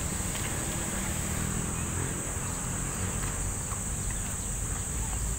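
Roadside outdoor ambience: a steady low rumble of traffic under a constant high-pitched hiss, with a few faint ticks.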